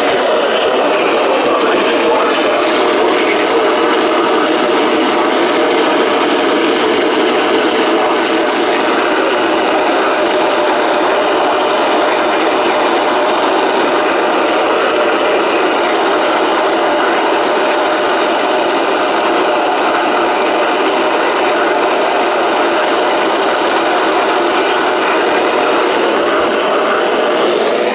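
Steady static hiss from a weather radio receiver: an even band of noise in the middle range, holding level throughout, with no clear voice.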